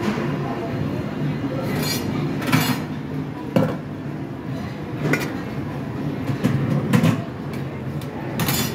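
Metal buffet serving-pan lids and dishes clinking and clanking, about half a dozen sharp clinks, over a steady background hubbub.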